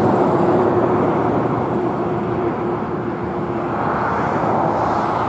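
Steady engine rumble with a faint hum that fades out about four seconds in.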